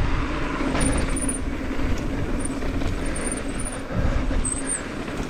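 Mountain bike rolling fast down a dirt trail: a steady rumble and rattle of tyres and frame over the ground, with wind buffeting the camera microphone.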